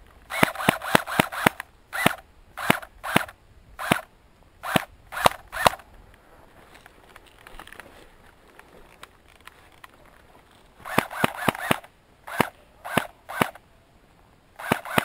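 Airsoft MAC-10 submachine gun firing: a quick burst of about six shots, then single shots about half a second apart, a pause of several seconds, then another short burst, more single shots and a last burst near the end.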